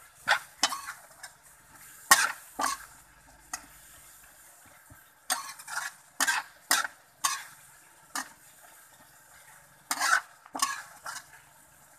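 Metal spatula scraping and knocking against an aluminium wok as chopped chicken offal and herbs are stir-fried, the strokes coming in quick clusters with short pauses between, over a light sizzle from the hot pan.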